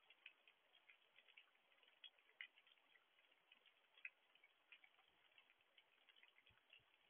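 Faint light rain: irregular ticks of raindrops striking over a soft hiss, with a few louder drops about two and a half and four seconds in.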